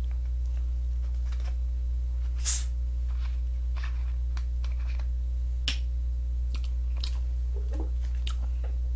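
Low steady hum under faint scattered clicks and rustles as a plastic cola bottle is picked up and handled, with one short hiss about two and a half seconds in.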